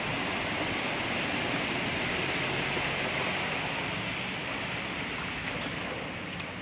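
Floodwater running through an underpass, a steady rushing hiss.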